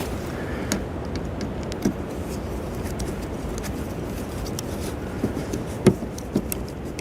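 Scattered light clicks and taps of a small screw being driven by hand with a screwdriver into a plastic hood bug deflector, over a steady low background rumble.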